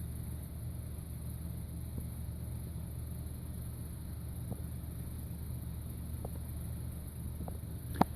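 A steady low hum with faint background noise, a few faint ticks, and a sharp click near the end.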